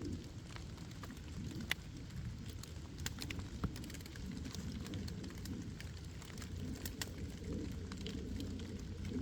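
Wood campfire crackling: irregular sharp pops, a few of them louder, over a steady low rumble, with rain pattering.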